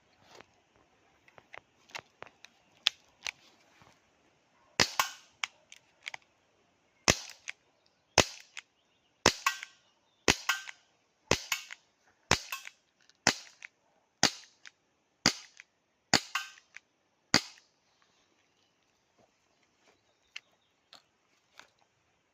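Elite Force H8R Gen 2 CO2 airsoft revolver being fired, about a dozen sharp shots roughly a second apart, each followed by a fainter click. Lighter clicks come before and after the string of shots.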